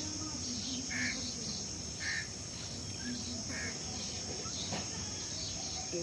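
Insects droning steadily in a high, even band, with a few brief chirps about one, two and three and a half seconds in.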